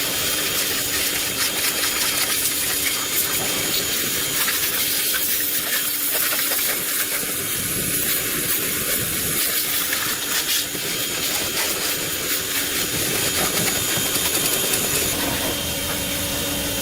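A loud, steady hiss with faint high whistle tones running through it.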